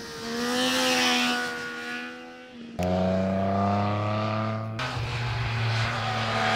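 Triumph Speed Triple RS's 1050 cc three-cylinder engine running at high revs through its Arrow exhaust, in clips cut together. The note rises briefly about half a second in, then jumps abruptly to a different steady pitch about three seconds in and again near five seconds.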